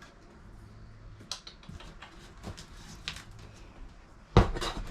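Wooden camper kitchen cabinet and wall panel being handled and worked loose: scattered light knocks and clicks, then one loud knock near the end.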